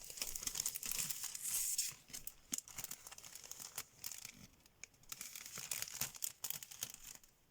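Sheets of scrapbooking paper being handled, with irregular rustling and crinkling, loudest in the first two seconds and again about six seconds in.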